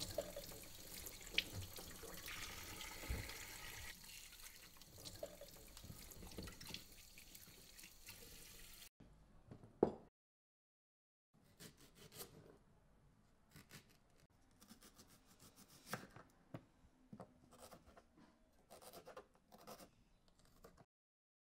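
Kitchen tap running into a sink while dishes are washed, with a few clinks, for about nine seconds. Then a single sharp knock, and after a short silence a knife slicing a leek on a wooden cutting board in irregular taps.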